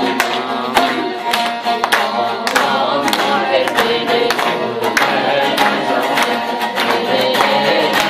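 Bağlama (long-necked Turkish saz) being strummed and plucked in a lively folk tune, picked up by a handheld microphone, with the audience clapping in time.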